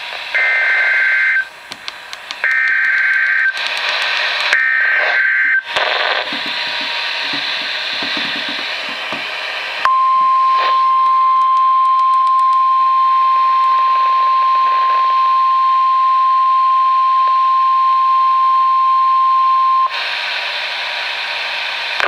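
A Midland NOAA Weather Radio's speaker plays an Emergency Alert System activation: three rasping digital data bursts (the SAME header), each about a second long with short gaps between, then a few seconds of radio hiss. About ten seconds in, the steady high NOAA weather alert tone sounds for about ten seconds and cuts off abruptly, back to hiss. Together these signal a new warning coming in, here a special marine warning.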